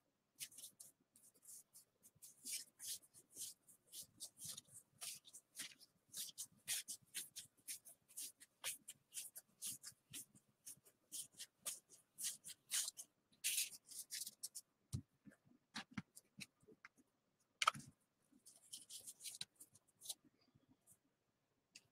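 Gypsy Queen baseball cards being thumbed through one by one, each card flicking and sliding off the next in quick papery swishes, two or three a second. Later the flicks thin out to a few separate, sharper snaps.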